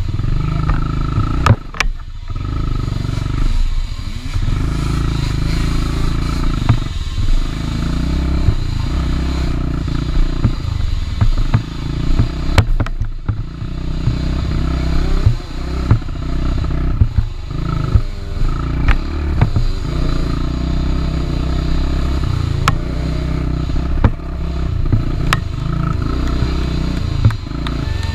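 Dirt bike engine revving up and down while being ridden over rough off-road terrain. Frequent knocks and clatter run through it.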